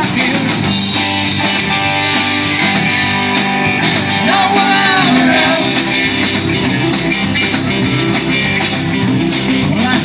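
Live rock band playing: electric and acoustic guitars over a drum kit, with a lead line bending in pitch a little past the middle.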